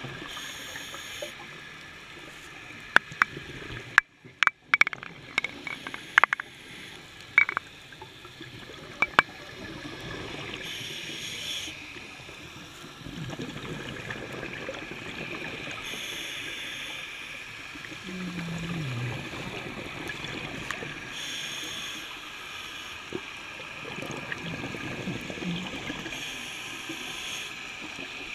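Underwater ambience picked up by a camera moving over a reef: a steady wash of water noise with a hissing burst about every five seconds, and a run of sharp clicks and knocks about three to nine seconds in.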